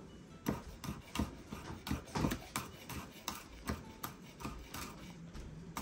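Knife chopping green Thai chili peppers on a cutting board: slow, even taps, about three a second.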